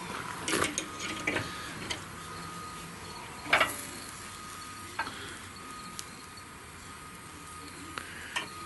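Metal rib hooks and a hook tool clinking against the rebar and steel barrel of a Pit Barrel Cooker as a hanging rack of baby back ribs is lifted and handled: several short clinks, the loudest about three and a half seconds in, over a faint steady hiss from the cooker.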